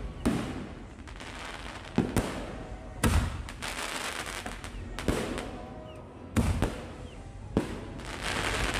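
Fireworks going off: irregular sharp bangs, some in quick pairs, over a steady background din.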